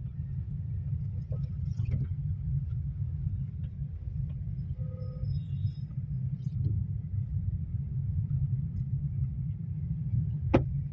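Steady low rumble of a car driving on a city road, heard from inside the cabin. A brief faint tone sounds about halfway through, and a single sharp click comes near the end.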